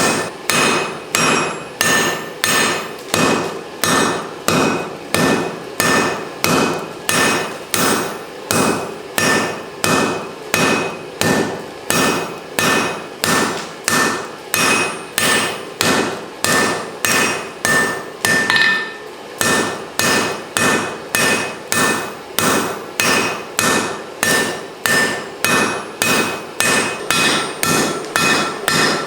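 Hand hammer striking hot mild steel on an anvil in a steady rhythm, about three blows every two seconds, each blow with a clear metallic ring; the hammering breaks off briefly about two-thirds of the way through, then resumes.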